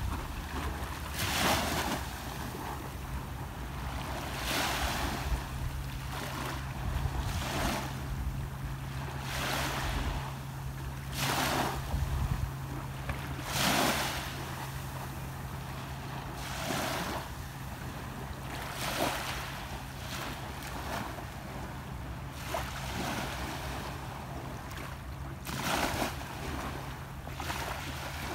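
Small waves lapping and breaking on the sandy shore, one wash every two to three seconds, over a steady low hum.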